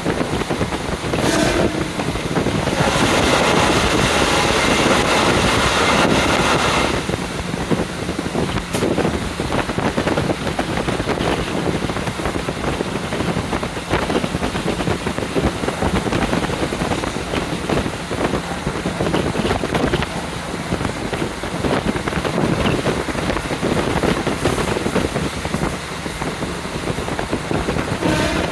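Wind rushing in through the open window of a moving JR Hokkaido KiHa 40 diesel railcar, over the train's steady running noise. The rush grows louder for about four seconds a few seconds in.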